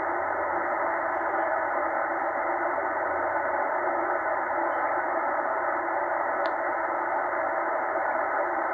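Steady hiss of shortwave static from a Tecsun H-501X receiver in lower sideband as it is tuned up through the 80-meter amateur band, with no clear station coming through.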